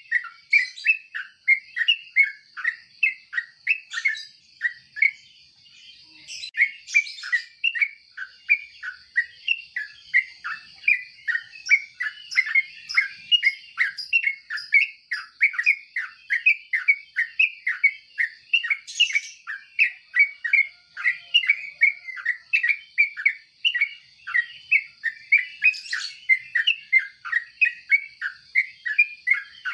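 Yellow-vented bulbul calling without a break: short, quick, down-slurred chirps about two or three a second, over a steady high whine.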